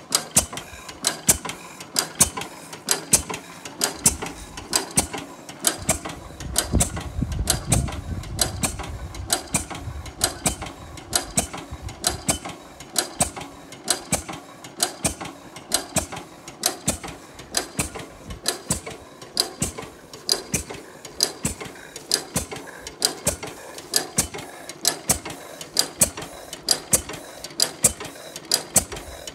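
10 hp Canadian Fairbanks Morse stationary engine running, with a steady rhythm of sharp mechanical clicks and knocks about twice a second.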